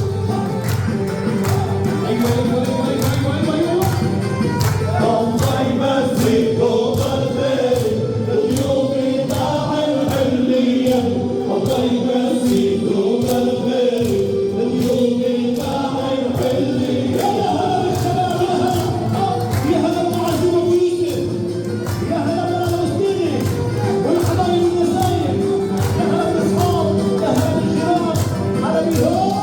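Arabic wedding music: men's voices singing together in chorus over a steady drum and tambourine beat.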